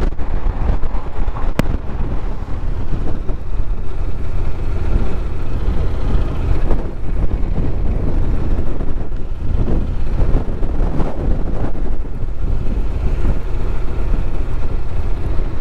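Steady wind noise on the microphone of a moving Honda NC750X motorcycle, with its parallel-twin engine running underneath; a single sharp click about a second and a half in.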